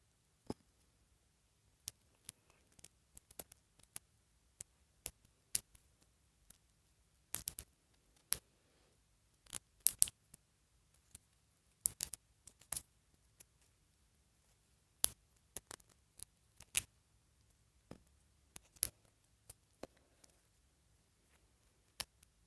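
Irregular sharp clicks and taps of hard plastic on plastic: a small plastic doll being worked into a stiff moulded plastic dress, with a few louder snaps in the middle.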